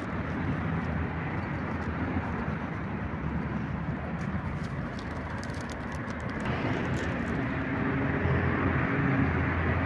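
Road traffic on a main road: a steady run of engine and tyre noise, with a vehicle growing louder about two-thirds of the way through.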